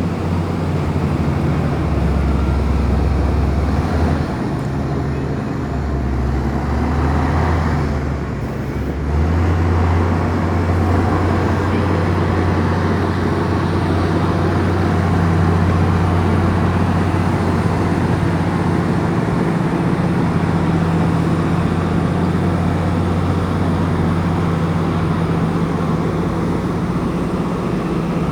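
Komatsu crawler bulldozer's diesel engine running loud and steady while working dirt. Its low note drops and rises a few times in the first ten seconds, then holds steady.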